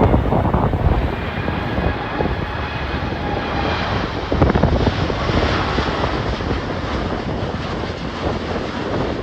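Airbus A330-900neo's Rolls-Royce Trent 7000 turbofans running on final approach, a steady jet roar with a faint whine in it, with wind buffeting the microphone.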